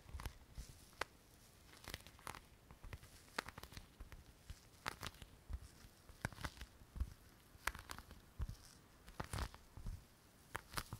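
Close-miked taps, clicks and crinkles of small objects being handled, coming irregularly a few times a second.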